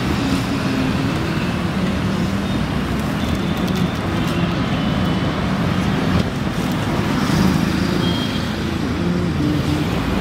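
Steady roadside traffic noise, with a few faint clicks.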